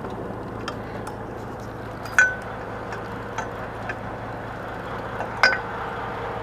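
Scattered sharp metallic clinks of fishing gear, the two loudest about two seconds and five and a half seconds in, each with a brief ring, over the boat's steady low hum.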